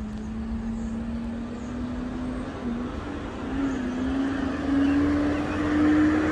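A motor vehicle approaching along the street, its engine note rising slowly in pitch and growing louder toward the end.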